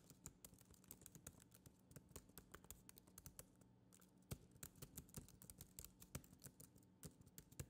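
Faint, quick, irregular key clicks of typing on a laptop keyboard.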